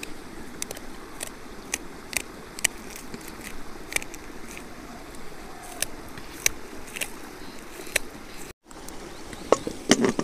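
Knife slicing green onions held in the hand, a crisp click at each cut, irregularly about one or two a second. Near the end come a few louder metal knocks as the lid goes onto the cast pressure cooker.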